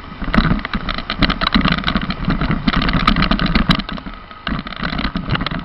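A motor vehicle travelling along a rough forest track: the engine runs steadily under a dense clatter of knocks and rattles from the bumpy ground.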